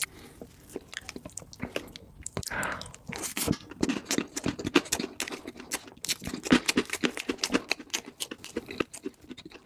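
Close-miked chewing of a mouthful of chocolate cake, with frequent wet mouth clicks and crunches.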